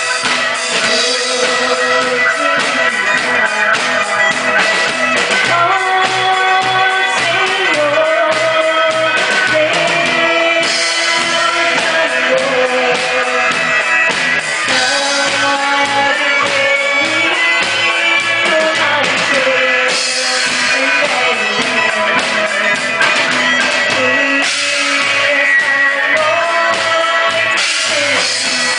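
Live band playing a Christmas song medley: a woman sings the melody over a drum kit keeping a steady beat and electric guitars.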